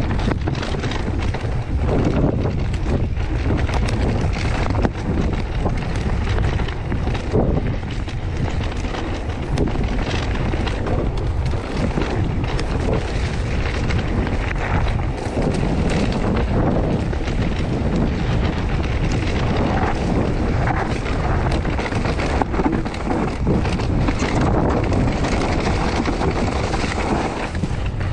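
Irregular clattering and rattling from the Bosch Performance Line CX Gen4 drive unit of a Canyon Strive:ON e-mountain bike while it is ridden, with wind rushing over the microphone.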